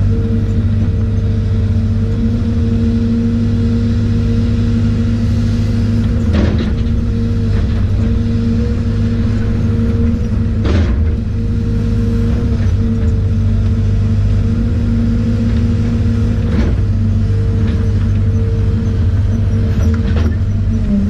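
CASE CX210C crawler excavator's diesel engine running at a steady working drone, heard from inside the cab as the machine digs, with a few short knocks along the way.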